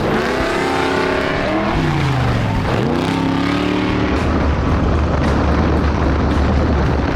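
Off-road race vehicle engine revving hard. Its pitch drops off about two to three seconds in, climbs again, then holds a steady low drone.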